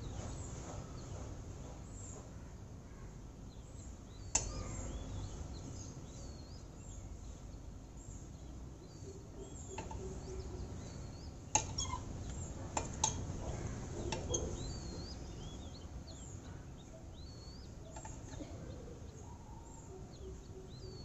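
Birds chirping faintly and repeatedly over low background noise, with a few light clicks and taps, the loudest a little after four seconds in and a cluster around twelve to fourteen seconds in.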